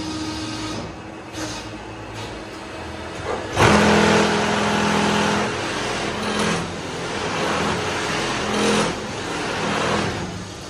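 Semi-automatic hydraulic paving-block press running: a steady machine hum, then about three and a half seconds in a sudden, louder stretch with a steady pitched drone that swells and eases several times as the press works under load.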